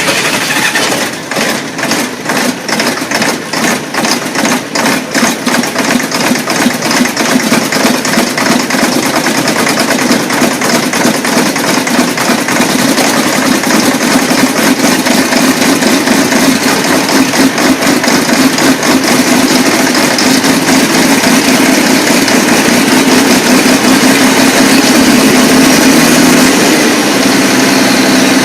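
A large engine that has just been started from cold, running with distinct, uneven firing beats at first that quicken and smooth out into a steady run. Its note steps up slightly near the end.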